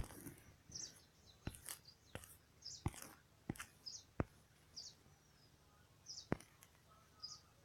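Faint, scattered short bird chirps, with several sharp clicks spread through the pause.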